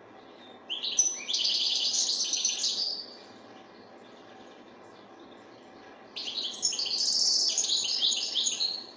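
European goldfinch singing: two bursts of fast, high twittering song, each about two to three seconds long, with a pause of about three seconds between them.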